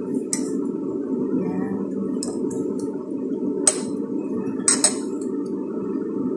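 Metal spoon clinking a few times against a ceramic bowl while stirring a mixture of egg and eggplant, with two quick clinks close together near the end. A steady low hum runs underneath.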